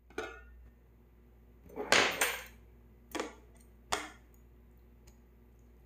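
Thin metal lid of a ramen pot lifted off and knocking against the pot: a click, then a louder clatter about two seconds in, followed by two sharp metal clinks.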